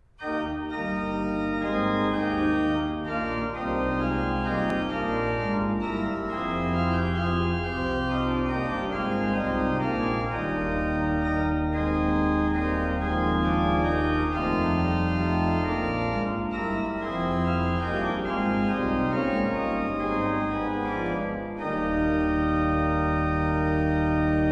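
Pipe organ playing full, sustained chords over a deep bass line, breaking off briefly near the end before a long held final chord.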